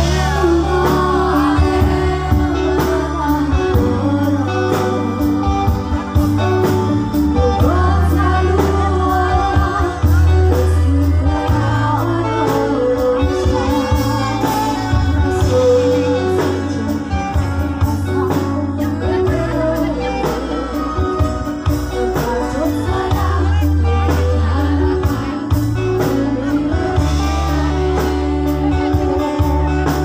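Live band music with a woman singing into a microphone over electric guitars, bass and drums, amplified through stage speakers.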